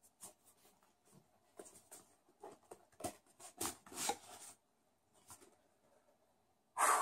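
A small cardboard mailer box being handled and its flap pried open: a run of short scrapes and rustles of cardboard, loudest about three and a half to four seconds in, then a few seconds of quiet.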